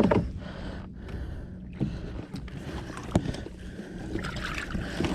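Steady low hum of a bass boat's electric trolling motor, with a few sharp knocks on the boat about two, three and a half seconds apart.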